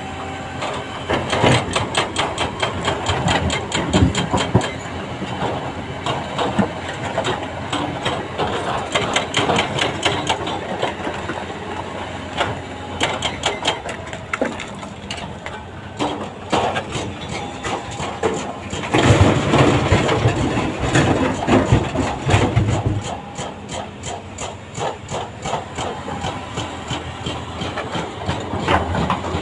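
Doosan DX340LCV excavator's diesel engine running under load as its steel bucket digs and scrapes through loose broken rock, with rapid clattering and knocking of stones against the bucket. About two-thirds of the way through comes a louder run of heavy thuds and rumbling as the load of rock is dumped into the steel body of a dump truck.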